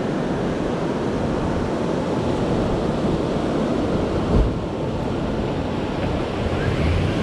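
Surf breaking and washing up the beach, a steady rushing, with wind buffeting the microphone. A brief low thump about four seconds in.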